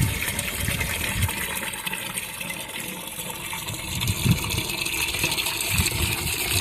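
Water spraying steadily from a garden hose sprayer onto freshly poured concrete, keeping the curing concrete wet, with a few low thumps underneath.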